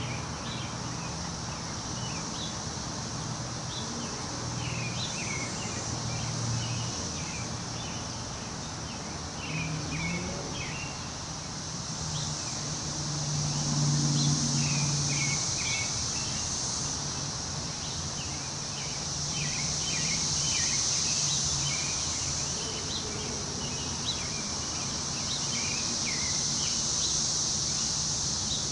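Wind in the trees rising and falling in gusts, with many short bird chirps and a steady high insect drone, over a low steady hum.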